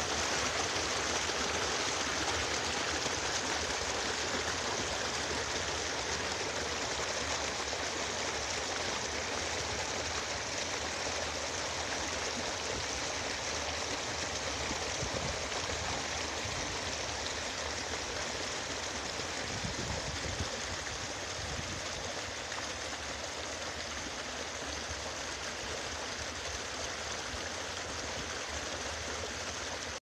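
Small, shallow mountain stream flowing steadily over stones: a continuous rush of water.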